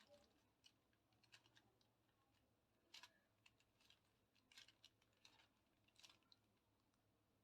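Faint, irregular plastic clicks and clacks of a 4x4 Rubik's cube as its layers are turned by hand.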